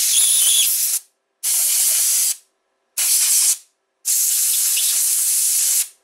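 Compressed-air blow gun blasting air through a brake bleed nipple to clean it out: four hissing blasts, the first already running and stopping about a second in, the last the longest at nearly two seconds.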